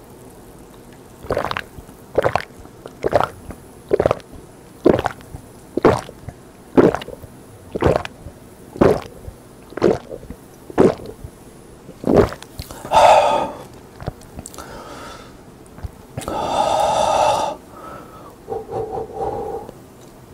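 A person gulping a drink in about eleven swallows, roughly one a second, then a long voiced exhale after the last gulp.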